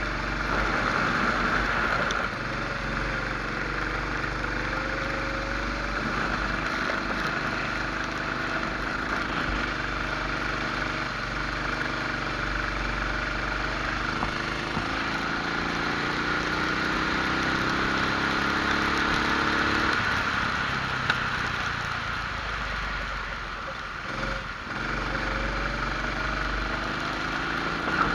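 Rental kart engine heard from onboard, its pitch rising and falling with speed through the corners. There is one long climb in pitch on acceleration about halfway through, which drops away a few seconds later, under a steady hiss.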